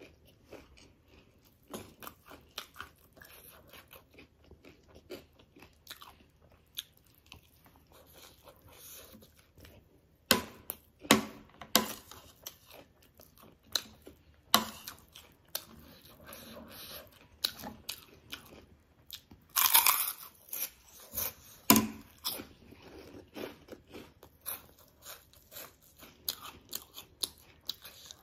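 Close-up crunching and chewing of spicy chatpate, a puffed-rice snack mix, with crisp dhungri (gol finger) sticks: irregular crisp bites and chews, with the loudest crunches about ten to twelve seconds in and again around twenty seconds.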